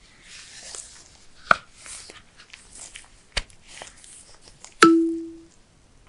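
Packaging handled close up: rustling and crinkling with a few sharp clicks. Near the end comes a loud sharp tap followed by a short low ringing tone that fades out quickly.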